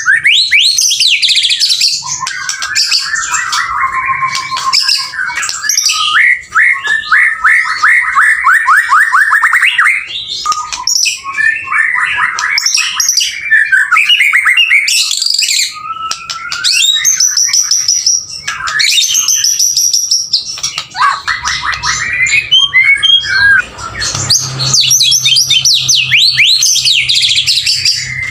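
Male white-rumped shama (murai batu) in full, non-stop song, the 'gacor' form that keepers prize. Loud, varied phrases of clear whistles, rapid trills and chattering runs follow one another with only brief pauses.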